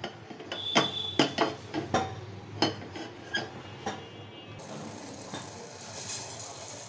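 Metal cookware clinking and knocking about a dozen times, one clink ringing briefly. Then, from a little past the middle, a soft, light hiss of dry red lentils being poured into a steel pot.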